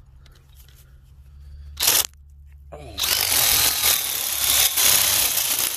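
Power drill turning a 1½-inch spade bit into the end grain of a log. There is a short burst of drilling about two seconds in, then steady drilling with chips tearing out from about three seconds on. The bit is too aggressive for this drill.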